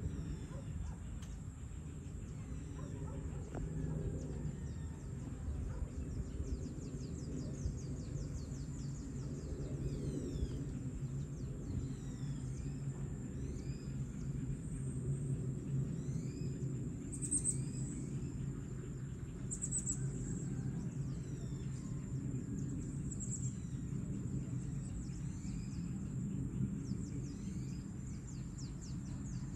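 Outdoor dusk ambience: small birds chirping with many short, high, falling calls, and a few louder high chirps in the second half, over a steady low rumble and a thin steady high tone.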